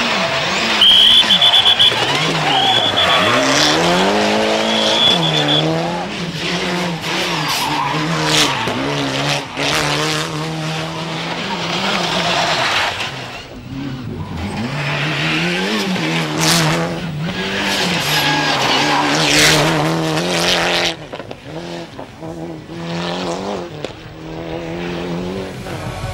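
Mitsubishi Lancer Evolution rally car's turbocharged four-cylinder engine revving hard, its pitch climbing and dropping again and again through the gear changes, with sharp cracks along the way. The tyres squeal through a corner in the first few seconds, and the engine grows quieter near the end.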